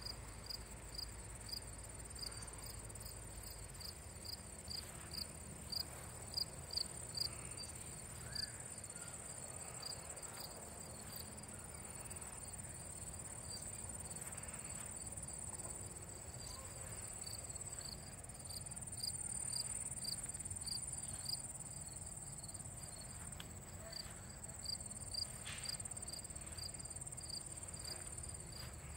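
Crickets chirping: an evenly repeating chirp, about two to three a second, over a steady high insect trill.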